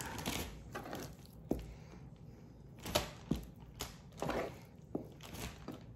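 Raw chicken wing pieces being handled and picked up off a plastic cutting board: scattered light taps and knocks.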